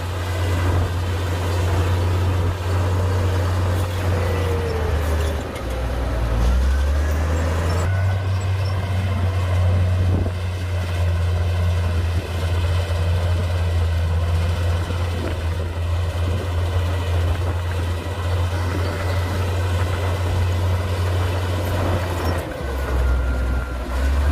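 Komatsu D58P bulldozer's diesel engine running under load in a deep, steady drone that drops in pitch twice, about a quarter of the way in and near the end, with faint gliding whines above it.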